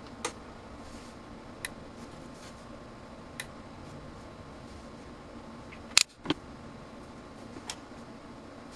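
Homemade 2 kV surge generator with a 14 ohm source firing test pulses, heard as about six sharp snaps at uneven intervals. The loudest comes about six seconds in, with another close behind it.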